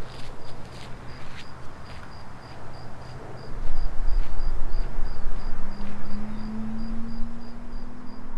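Cricket chirping steadily, about three short high chirps a second, over a low rumble. A low hum that rises slightly in pitch comes in about five and a half seconds in.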